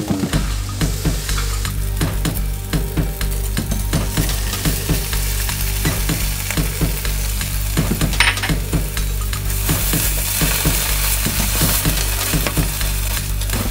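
Food sizzling in a nonstick frying pan while a spatula stirs and scrapes through onions, garlic and tomatoes, with rice poured in about halfway through. Background music with a steady bass runs underneath.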